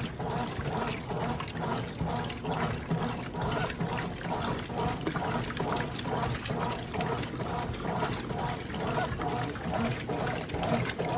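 Brastemp Clean washing machine at work, with water continuously sloshing and splashing in the tub over a steady low hum.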